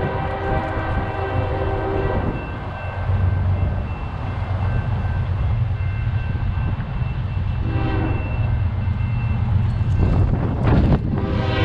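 Diesel freight locomotive rumbling close by while sounding its air horn: a held blast that ends about two seconds in, a short blast about eight seconds in, and another blast that starts just before the end.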